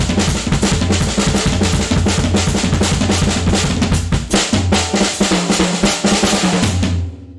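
A drum kit being played in a busy, continuous groove of snare and bass drum strokes, featuring the rebuilt solid-wood stave snare drum, with the recording overloaded and clipping. The playing breaks off for a moment near the end.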